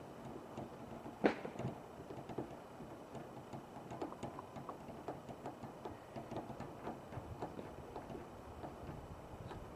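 Faint, irregular small clicks and taps of parts being handled and pressed together while a piece is fitted onto a fuel pump assembly by hand, with one louder click about a second in.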